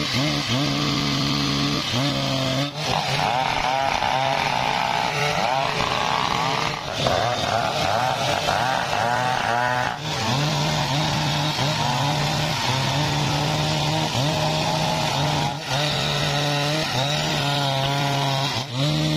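Husqvarna 395XP 94 cc two-stroke chainsaw running at full throttle, ripping lengthwise through a sengon log. The engine pitch wavers up and down as the chain loads in the cut.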